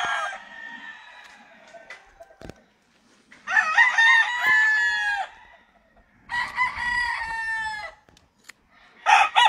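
Roosters crowing again and again: two full crows of under two seconds each, about three and a half and six seconds in, with one crow tailing off at the start and another beginning near the end. A single sharp click falls between them.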